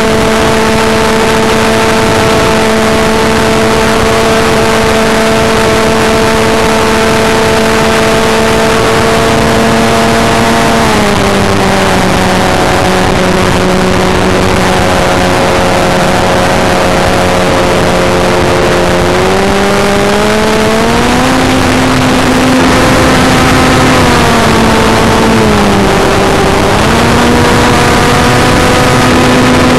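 ParkZone T-28 Trojan RC plane's electric motor and propeller whining in flight, heard from an onboard camera with wind rushing over it. The pitch drops about a third of the way in, climbs back up around two-thirds in, and dips briefly near the end as the throttle changes.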